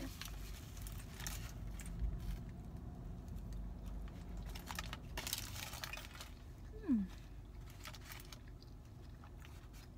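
Aluminium foil wrapping crinkling in several short bursts as tacos are handled and eaten. A short falling vocal hum comes about seven seconds in.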